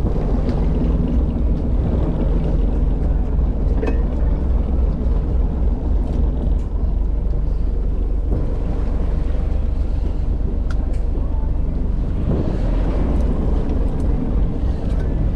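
Fishing boat's engine running steadily, a continuous low hum with water and wind noise over it, and a few faint clicks.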